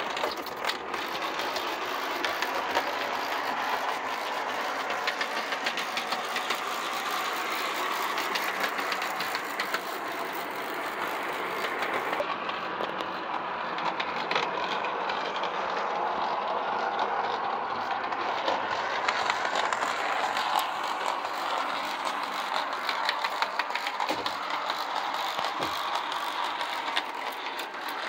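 Brass O scale model of a Japanese National Railways C62 steam locomotive running along the track: a steady mechanical whirr of motor and gears with fast, fine clicking and rattling from the wheels on the rails.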